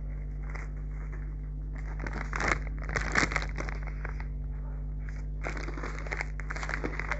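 Foil snack bag of puffs crinkling in short bursts as it is handled, over a steady low hum.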